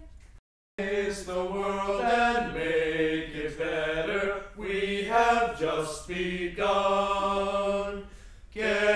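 Vocal music: a group of voices singing a slow song, starting after a brief silence just under a second in, with a short lull near the end.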